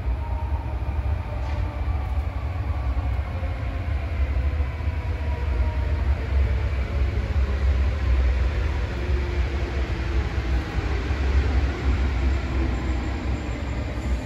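Electric suburban train approaching along the tracks, its running noise growing slowly louder, over a steady low rumble.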